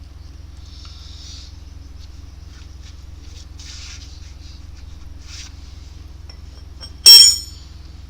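A single sharp metal-on-metal clang with a brief high ringing, about seven seconds in, over a steady low hum; faint small clinks and scrapes come before it, as tools and parts are handled for mounting the wheel.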